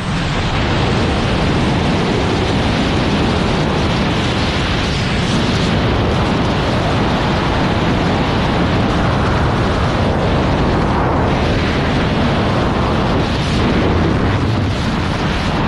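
Loud, steady wind rush buffeting a helmet-mounted GoPro's microphone during skydiving freefall.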